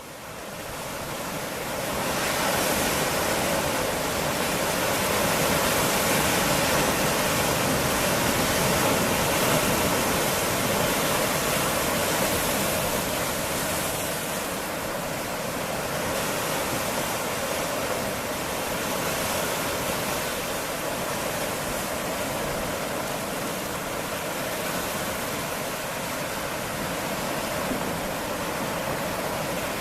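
Sea waves washing against rocks on a rocky shore: a steady rush of water that fades in over the first two seconds and slowly swells and eases.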